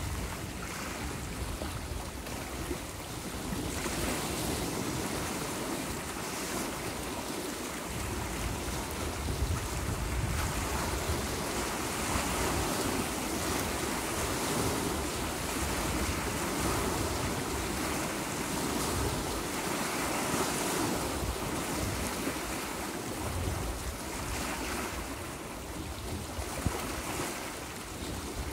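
Wind-driven lake waves washing and breaking against a rocky shore, swelling and easing in surges, with gusts of wind buffeting the microphone as a low rumble.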